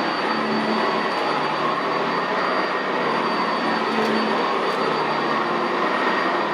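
Sanitaire SC679J commercial upright vacuum running steadily on carpet: an even motor rush with a thin high tone held over it.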